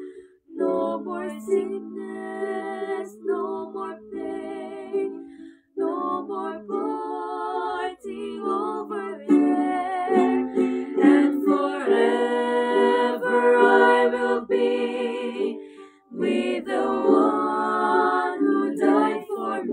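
A small group of female voices singing a slow gospel song together, accompanied by a strummed ukulele, with short pauses between phrases.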